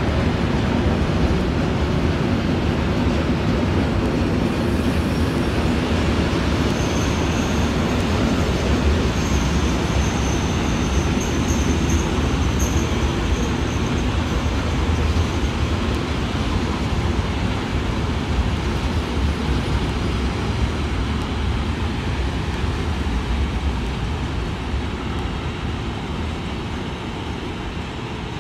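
Freight train rolling through the yard, a steady rumble of wheels on rail. A thin high squeal runs from about 7 to 13 seconds in, and the noise fades near the end.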